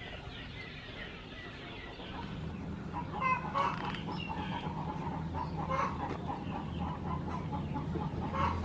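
Chickens clucking, with a cluster of short calls about three seconds in and more around six seconds and near the end.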